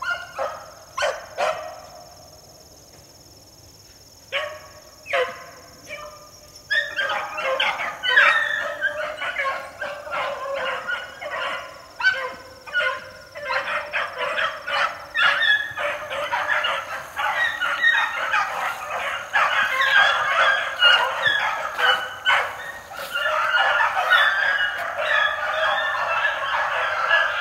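A pack of young beagles baying while running a rabbit on scent: scattered bays at first, then about seven seconds in the voices pile into an almost unbroken chorus.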